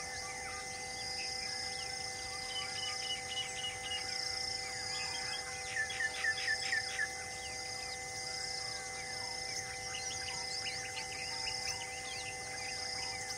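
Outdoor ambience of birds calling over a steady high drone of insects. Short chirps repeat throughout, and a run of about six quick descending bird notes comes about six seconds in.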